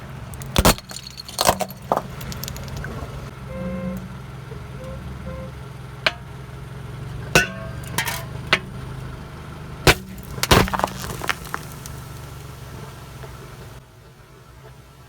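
A car engine idles with a steady low hum while objects crushed under its tyres crack and snap in a string of sharp pops, thickest early on and again in the middle. The engine hum falls away near the end.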